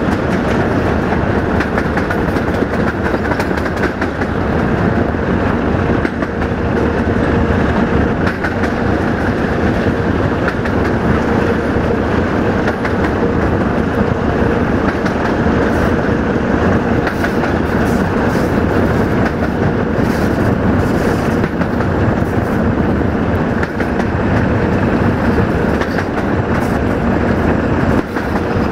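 Diesel-electric freight locomotive (Romanian 060-DA, Sulzer engine) running steadily with a heavy freight train, its engine a steady drone mixed with wheel and rail noise. The wheels clatter over rail joints.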